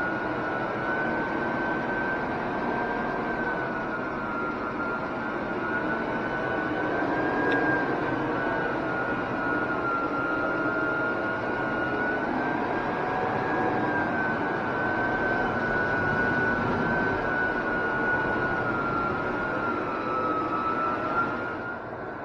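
Electric high-speed floor burnisher running with its pad on vinyl composition tile: a steady motor whine over a dense whooshing hum. The pitch wavers gently as the machine is swung back and forth, and the sound drops a little just before the end.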